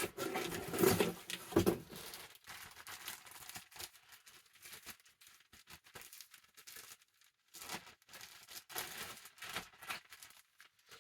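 A mailed package being torn open and its packaging crinkled and rustled by hand: a run of irregular crackles and tears, loudest in the first couple of seconds, then sparser handling rustles.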